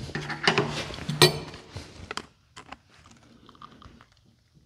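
Metal pry tool scraping and clinking against the metal PTO housing as it is worked into the seam under the hydraulic pump unit, which is stuck in place with RTV sealant. A dense run of scraping with two sharp metal clicks in the first two seconds, then a few scattered light clicks.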